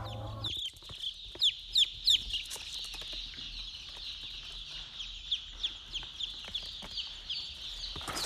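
Chickens calling in the hen house: a run of high, falling peeps, several a second, loudest about one to two seconds in, then fainter and steady.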